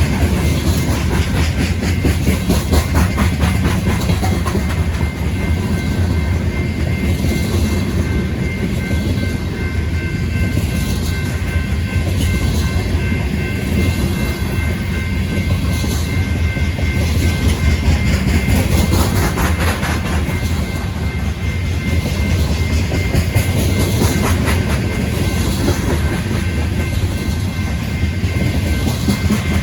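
A train passing close by: a steady, loud rumble with wheels clicking over the rail joints and a faint thin squeal held above it.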